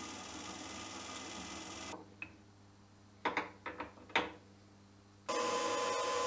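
Benchtop milling machine spindle running steadily while a small end mill cuts a hole in a round metal bar, then stopping abruptly. In the quiet, a few sharp metallic clicks and knocks as the collet block holding the bar is turned and re-clamped in the vise. Near the end the mill starts running again with a steady, louder whine.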